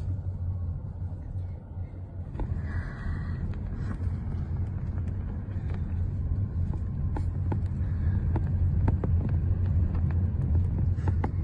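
Steady low rumble of a car driving, heard from inside the cabin, with scattered faint knocks and clicks, growing a little louder in the second half.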